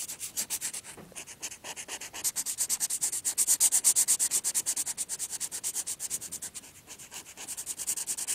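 Felt-tip marker scribbling quickly back and forth on paper, colouring in, many scratchy strokes a second, with a short pause about a second in and loudest in the middle.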